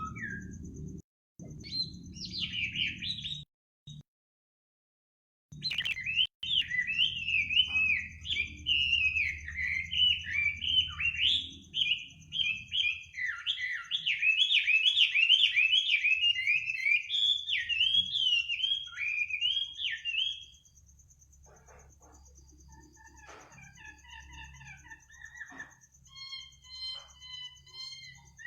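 A bird singing at night: fast, busy chirping phrases that break off about twenty seconds in. Fainter, evenly spaced whistled notes follow. The sound cuts out completely for about two seconds near the start.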